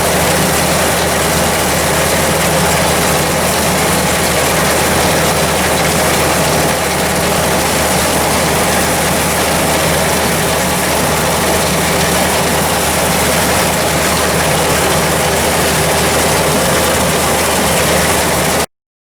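Tractor engine running steadily under a constant mechanical clatter, which cuts off suddenly near the end.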